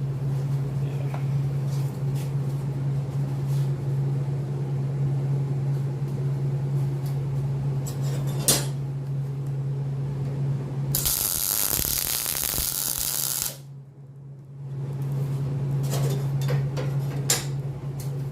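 Electric welder humming steadily while tacking steel angle iron, with one sharp click about eight seconds in and a crackling weld arc lasting about two and a half seconds around eleven seconds in. The hum drops away briefly just after the arc.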